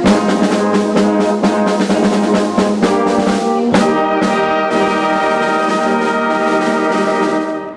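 Brass instruments playing: a run of quick notes, then a long held chord from about four seconds in that cuts off sharply just before the end.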